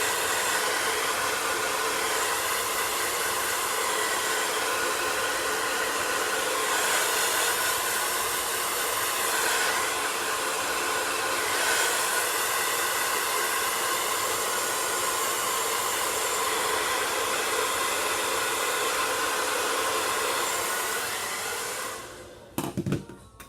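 Handheld blow dryer running steadily, a rush of air with a motor whine, blown over the glued lace front to dry the glue. It switches off near the end, followed by a few light knocks.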